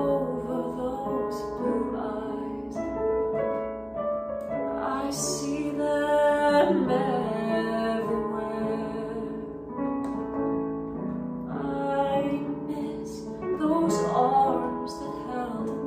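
A woman singing a slow ballad while accompanying herself with piano chords on an electronic keyboard.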